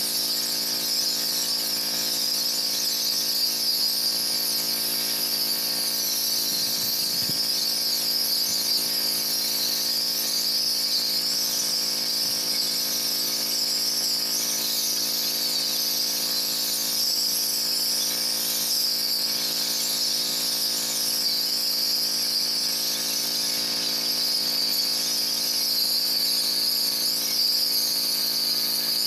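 Pressure washer running steadily: the even drone of its motor under a loud, high-pitched hiss of the water jet spraying, wavering slightly in pitch.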